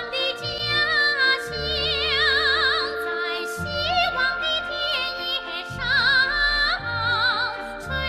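Background music: a woman singing a slow melody in an operatic style with wide vibrato, over sustained instrumental accompaniment and a low bass.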